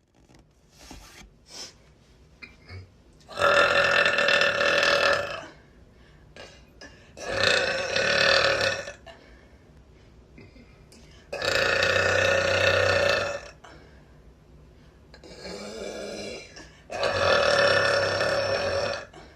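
A woman burping: five long, bassy burps of one and a half to two seconds each, with pauses of a couple of seconds between them. The fourth burp is quieter than the others.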